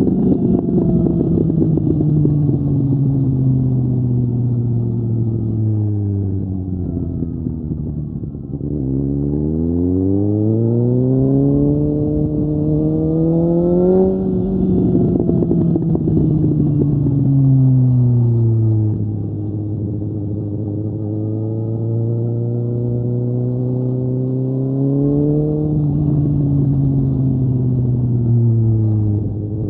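Suzuki GSX-S750's inline-four engine through a Mivv Storm aftermarket exhaust, on the move. The engine note drops off for the first several seconds, then climbs sharply under acceleration for about five seconds. It falls away again, holds steady for a few seconds, and rises and falls once more before dipping briefly near the end.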